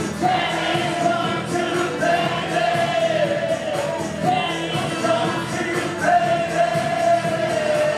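Live electronic body music played loud through a concert PA: a synth-and-drum track with a steady beat under a male vocal singing long held notes.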